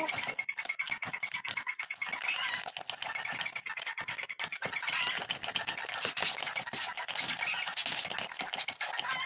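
Wooden spoon stirring and scraping a thick cream against the sides of a terracotta bowl: a quick, continuous run of scraping strokes.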